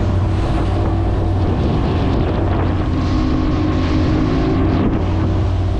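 Motorboat under way: the engine's steady hum with water rushing along the hull and wind buffeting the microphone.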